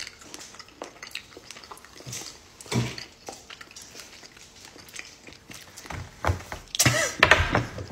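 Two people chewing jelly beans, with scattered soft mouth and table knocks, then a short vocal reaction about seven seconds in.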